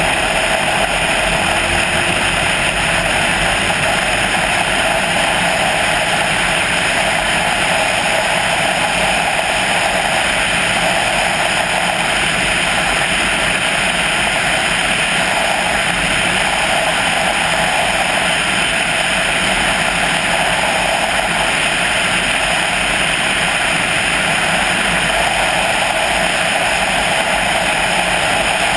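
Steady wind and road noise from a vehicle driving at speed, rushing evenly with no change in level.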